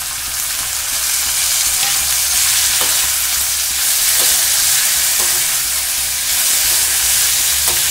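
Onions, garlic, dried red chillies and freshly added chopped tomatoes sizzling in hot oil in a metal kadai, stirred with a perforated metal spoon that scrapes the pan a few times.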